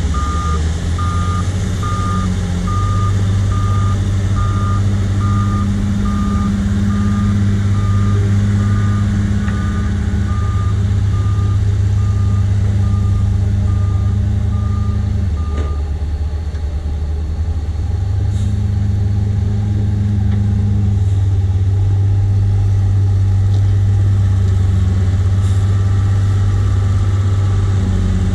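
JCB 436ZX wheel loader's Perkins 1006.6T six-cylinder turbo-diesel running hard, with the loader's reversing alarm beeping steadily about one and a half times a second as it backs away from the pile. About halfway through, the beeping stops and the engine note drops briefly, then picks up again as the loader drives forward into the mud.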